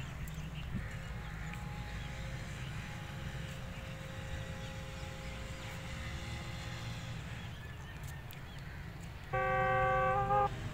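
Steady low outdoor rumble with a faint distant hum, then near the end a single loud horn blast held for about a second.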